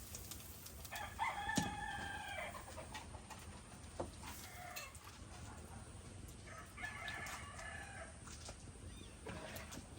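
Rooster crowing twice, each crow about a second and a half long, with shorter, fainter calls in between.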